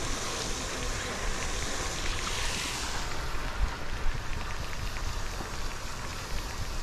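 Steady hiss of a pond fountain's spray, with wind on the microphone. About three seconds in the hiss drops away, and cloth rubs and bumps against the microphone.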